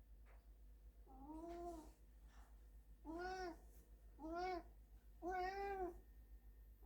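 Domestic cat meowing four times, each meow short, its pitch rising and then falling.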